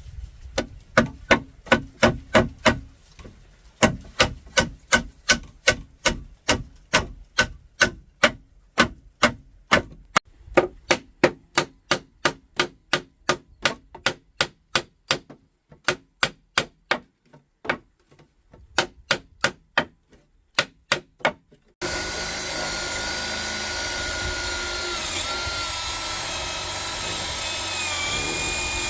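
Hammer blows on wood, quick and regular at about three a second, in runs with short pauses. Then a power tool's motor starts abruptly and runs steadily, its pitch dipping now and then.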